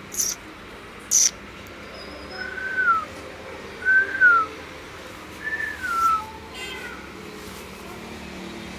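A puppy whining three times, each a high, thin cry under a second long that holds its pitch and then falls. Two sharp clicks come in the first second or so.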